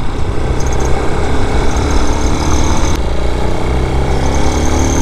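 Vitacci Raven 250's single-cylinder, air-cooled 229cc engine running under way, with road and wind noise; the engine pitch rises near the end as the bike speeds up. A thin high tone comes and goes above it.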